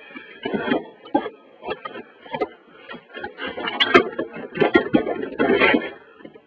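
A CD/DVD drive being slid into a desktop computer case's drive bay, with scraping and several sharp clicks and knocks of the drive against the case.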